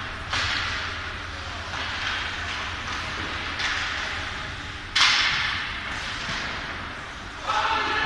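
Ice hockey play echoing in a rink: several sharp cracks of stick on puck and puck against the boards, the loudest about five seconds in, each ringing out in the arena.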